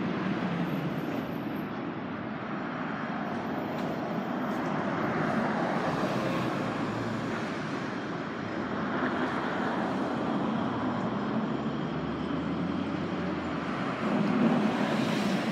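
Steady city ambience of distant vehicles, a rumble that swells and fades slowly a few times.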